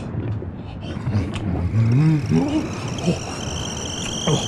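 Low rumbling noise with a person's wavering groan about two seconds in; near the end a high, steady, multi-tone whistle starts up.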